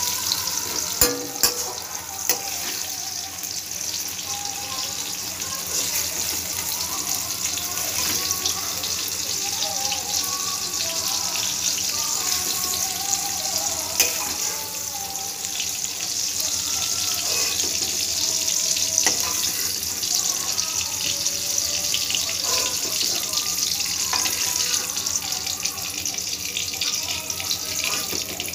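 Eggplant strips sizzling steadily as they fry in hot oil in a steel wok, with a few sharp clicks of a utensil against the pan about a second in and again about halfway.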